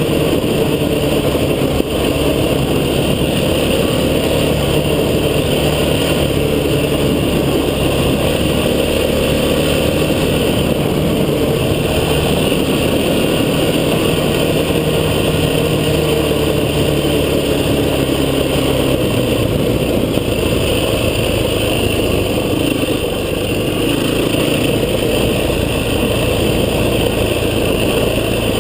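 Vehicle engine running steadily while driving off-road, its pitch drifting gently up and down, with a change in its low tone about twenty seconds in.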